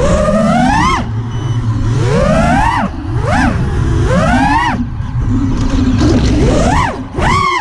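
FPV freestyle quadcopter's brushless motors whining. The pitch swoops up and down about once a second as the throttle is punched and eased, over a low rumble of wind on the onboard microphone.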